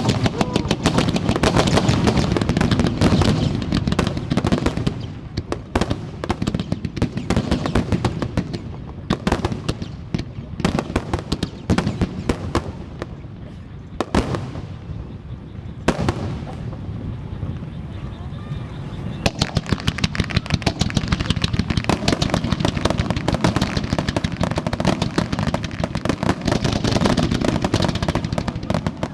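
Fireworks display finale: rapid volleys of aerial shell bursts and crackling, thinning out in a lull about halfway through and then building into dense bursts again.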